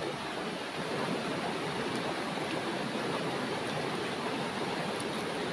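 Steady rush of a shallow, rocky stream flowing over stones.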